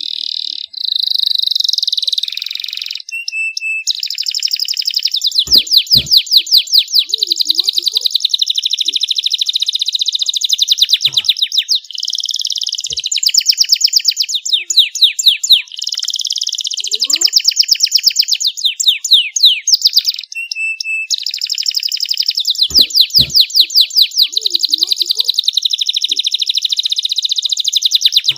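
Domestic canary singing hard and clear: a continuous song of fast rolling trills and rapid repeated notes, with a few short breaks between phrases.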